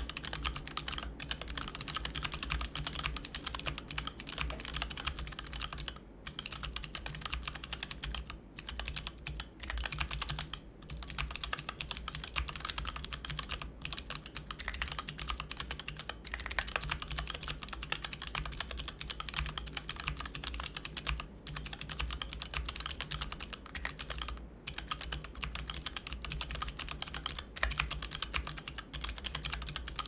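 Steady fast typing on a mechanical keyboard built with Gatistotle switches on 78 g springs, a brass plate and GMK keycaps: a quick patter of keystrokes with short pauses now and then.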